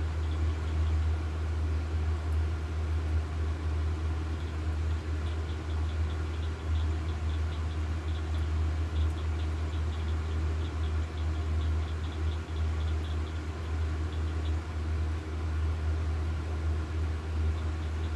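A steady low mechanical hum, with faint quick ticking over it for a few seconds in the middle.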